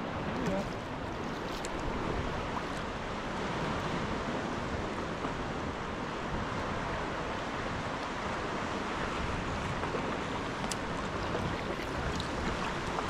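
Steady rush of sea water and wind around a sea kayak on open water, with a few faint ticks of water.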